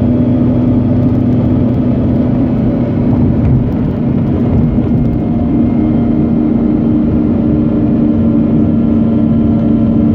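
Mazda RX-8's Renesis twin-rotor rotary engine running at a steady speed: an even, constant drone with no clear rise or fall in pitch.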